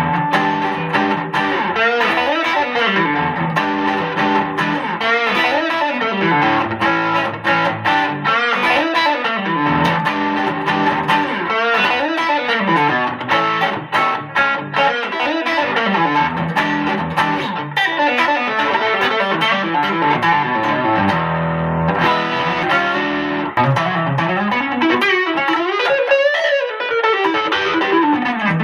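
Semi-hollow 335-style electric guitar played through an amp, with lead lines full of string bends and slides over held low notes.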